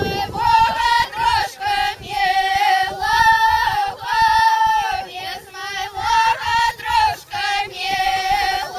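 A group of women and girls singing a traditional village folk song in loud, open voices, together on much the same high note. They sing in short held phrases with quick breaks between them.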